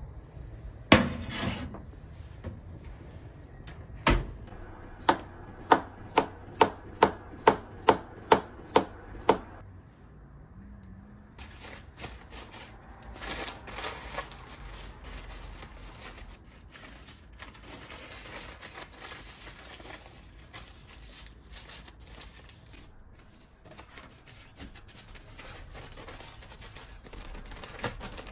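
A sharp knock, then a kitchen knife chopping small cucumbers on a cutting board: about ten even strokes, a little over two a second. After that, a paper towel rubs and rustles over the cucumbers to dry them.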